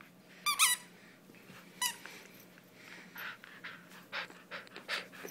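Squeaker in a purple plush dog toy squeaking as a German Shepherd puppy tugs on it: a quick double squeak about half a second in and one more near two seconds. Then a run of short breathy noises from the puppy.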